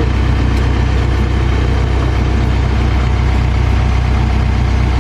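Heavy diesel engine idling steadily, a deep even drone with no change in speed.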